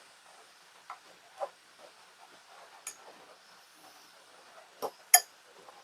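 A few light clinks and taps of forks against dishes while beans are served, spread out with the loudest pair near the end.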